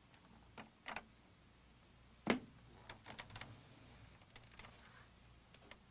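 Faint clicks and taps of a display cable connector being unplugged from a Macintosh Portable's main logic board, with the loudest click about two seconds in.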